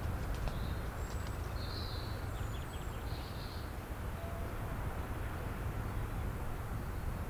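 Steady outdoor background noise, heaviest in the low end, with a few faint high bird chirps between about one and three and a half seconds in.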